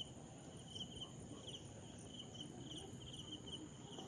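Faint cricket chirping at dusk: short high chirps repeating a few times a second, over faint background noise.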